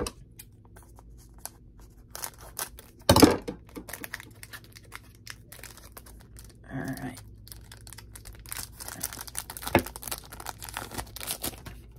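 Foil Pokémon booster pack crinkling and tearing as it is pulled open by hand, in scattered short bursts. The loudest tear comes about three seconds in, with more crackling near the end.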